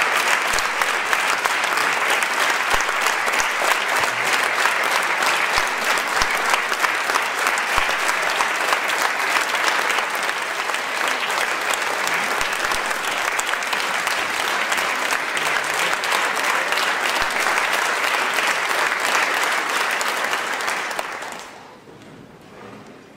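Audience applauding steadily, a dense roar of many hands clapping that dies away near the end.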